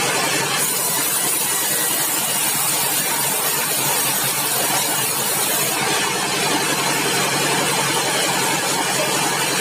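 Sawmill engine running steadily, with a high hiss that shifts in strength about half a second in and again around six seconds in.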